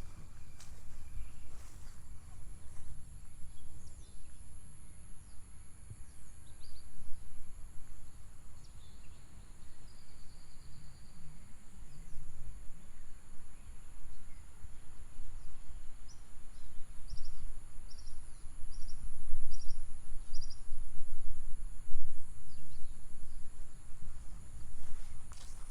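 Outdoor ambience: a steady high insect drone, with a short series of high chirps about two-thirds of the way through, over an uneven low rumble.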